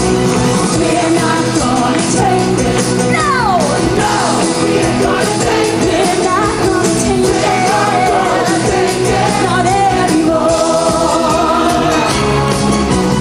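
Amplified live rock band playing: drum kit, electric guitars and sung vocals over a PA system. One sliding note falls in pitch about three seconds in.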